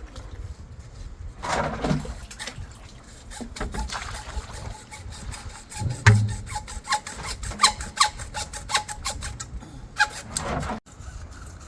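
Hand work on a water pipe during a leak repair: a series of quick scraping strokes and clicks, coming faster in the second half, with a dull knock about six seconds in.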